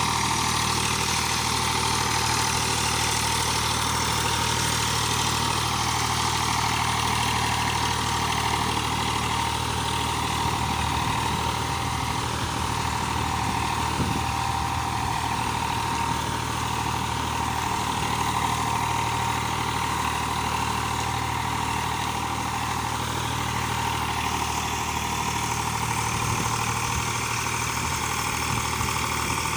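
Eicher tractor's diesel engine running steadily as the tractor churns through deep, waterlogged paddy-field mud with a rotavator on the back.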